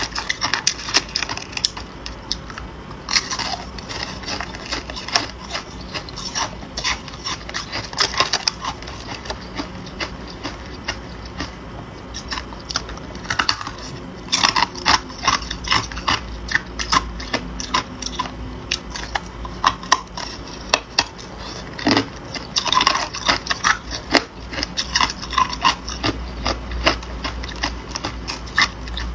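Ice being bitten and chewed: irregular runs of sharp, cracking crunches, denser every few seconds.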